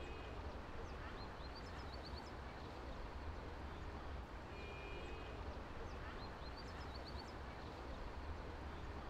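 Outdoor ambience: a steady low rumble with birds chirping in short clusters, about a second in and again about six seconds in.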